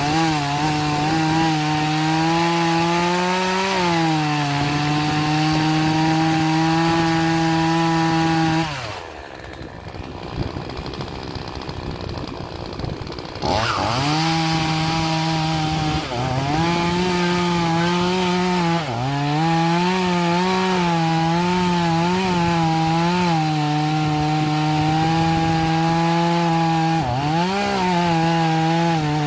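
Troy-Bilt TB4218 42cc two-stroke chainsaw running at high revs while cutting into an oak stump, its pitch dipping and recovering several times as the chain takes load. About nine seconds in the engine note drops away for some four seconds, then revs back up.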